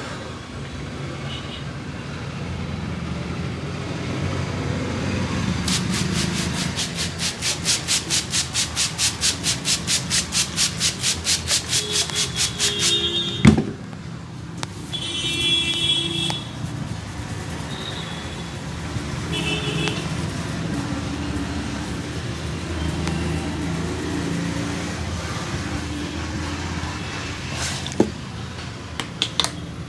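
Street traffic with a few short horn toots. In the middle comes a run of quick rhythmic slaps, about four a second for several seconds, ending in one sharp crack.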